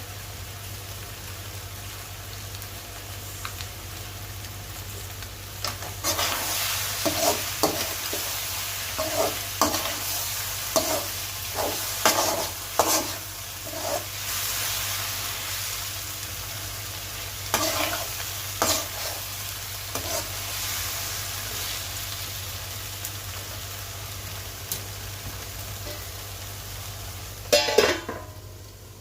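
Mutton brain frying in a pan with a steady sizzle, getting louder about six seconds in. A utensil stirs and scrapes against the pan in a run of quick strokes, then a few more later and again near the end.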